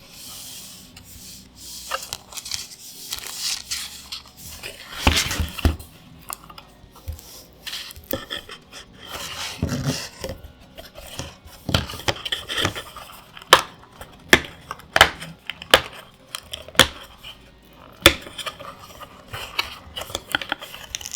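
Close-up handling of a Commander deck's cardboard and plastic packaging: irregular rustling and scraping, broken by sharp taps and clicks, several of them in the second half.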